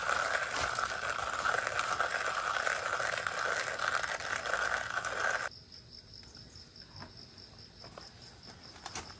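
A steady hiss for about five and a half seconds that cuts off suddenly. Then faint crickets chirping in an even, pulsing rhythm.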